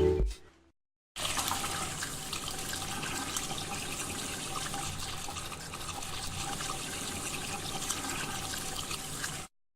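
Water running steadily from a tap into a sink, starting abruptly about a second in and cutting off just before the end.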